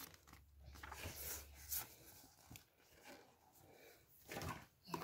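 Near silence, with faint rustling of paper sticker sheets being handled during the first couple of seconds and a brief faint noise near the end.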